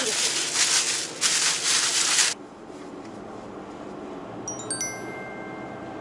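Plastic bags crinkling and rustling as they are pushed down into a full cooler, cutting off abruptly after about two seconds. Then, about four and a half seconds in, a bright sparkling chime sound effect with a few lingering ringing tones.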